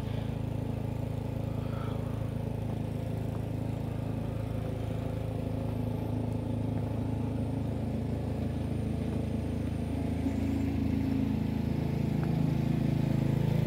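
Engine running steadily, a low hum that grows louder over the last few seconds.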